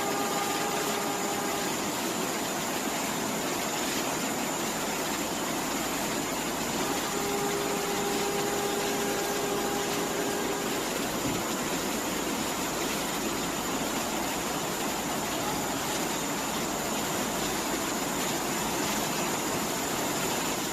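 A steady rushing noise without a break, with a faint pitched hum near the start and again for a few seconds in the middle.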